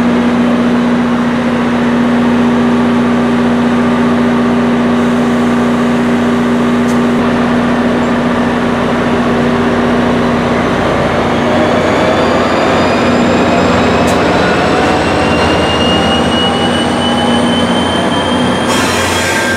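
NJ Transit push-pull train of Comet coaches passing at speed, its wheels rumbling on the rails, with the GP40PH-2B diesel locomotive pushing at the rear and drawing level near the end. A steady low drone runs throughout, and rising whines come in through the second half.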